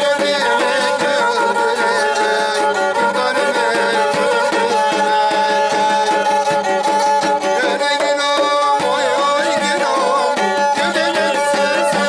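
Live Turkish folk music: a small pear-shaped string instrument played with a long bow carries a wavering melody over a large davul drum beaten by hand.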